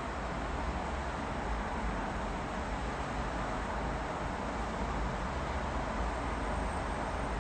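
Steady, even wash of distant road traffic with a low rumble underneath.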